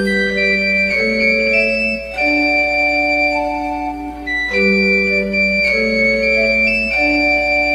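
Instrumental interlude of a nursery-rhyme song played on an electronic organ-style keyboard: held chords that change every half second or so, with the same short phrase heard twice.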